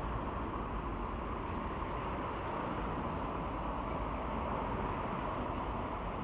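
Steady, even rushing background noise with a low rumble underneath, unchanging throughout.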